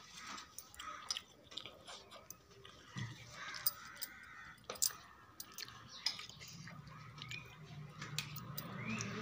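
A spoon stirring a steel bowl of Maggi noodles: soft wet squishing of the noodles, with scattered clicks of the spoon on the bowl and two sharper clinks around the middle. A low steady hum comes in over the last few seconds.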